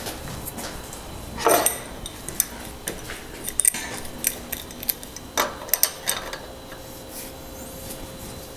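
Irregular metal clicks and clinks of hand tools on a Campagnolo aluminium crank arm, as a crank puller is threaded in and an adjustable wrench is fitted onto it, with a few sharper clinks about a second and a half and five and a half seconds in.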